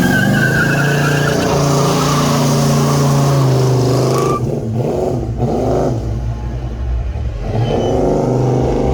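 Car engine running and revving, with a high squeal over the first four seconds.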